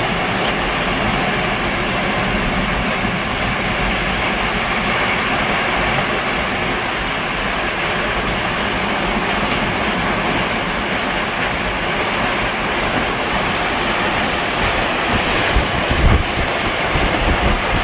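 Steady, dense rushing noise of tornado winds at close range, with strong gusts buffeting the microphone in low thumps near the end.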